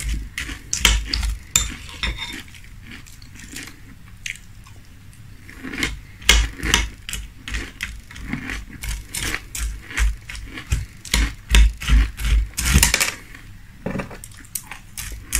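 Crunchy chewing of frosted corn flakes in milk, with a metal spoon clinking and scraping against a glass bowl as it scoops more cereal. The crunching and clinking come in bursts of quick clicks, with a quieter stretch in the first few seconds.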